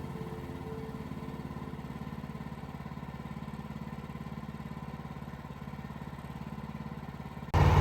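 Engine running steadily at an even speed, becoming suddenly much louder near the end.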